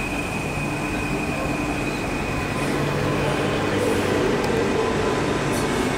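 Alstom X'Trapolis Modular electric multiple unit rolling slowly past: a steady electric hum with a thin high whine that fades over the first couple of seconds, the sound growing a little louder about three seconds in.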